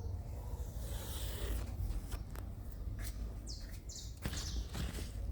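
Garden birds chirping: two short, high chirps about three and a half seconds in, over a constant low rumble and a few sharp clicks.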